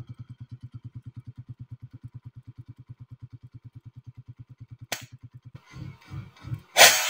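A fast, low pulsing beat of about ten pulses a second, slowing near the end, with a sharp click about five seconds in; right at the end comes a loud air rifle shot, the loudest sound of all.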